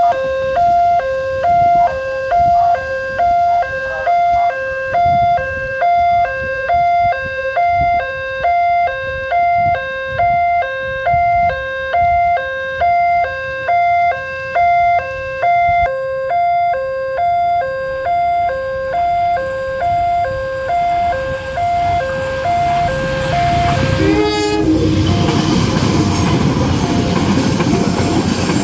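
Railway level-crossing alarm ringing a fast two-tone electronic chime, alternating between two pitches about once a second, until it fades out about two-thirds of the way through. A train horn sounds briefly, then a KAI passenger train passes close by with a steady rumble and wheel clatter.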